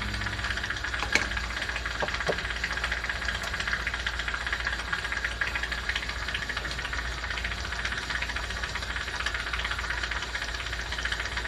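Steady background machine noise, a low hum with a fine crackling texture, with a light tap about a second in.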